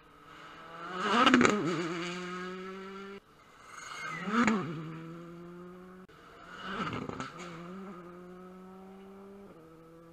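Rally cars passing at speed, three in a row: each engine note swells to a loud peak as the car goes by, then drops in pitch and holds a steady note as it pulls away. The loudest pass is about a second in; the others come at about four and seven seconds.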